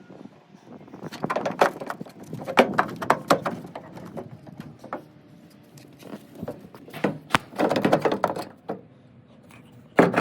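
Bursts of metal clanks, knocks and rattles as a steel car door hinge is handled and worked into place against the door, with one sharp click near the end.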